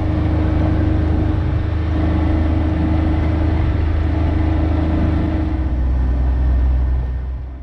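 Motor vehicle driving: a steady engine drone with road and tyre noise and a deep rumble, dying away near the end.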